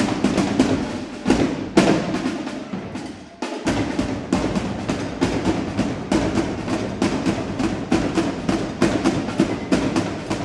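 Drill team drum line playing a fast, driving cadence of rapid drum strikes, with a brief break about three and a half seconds in.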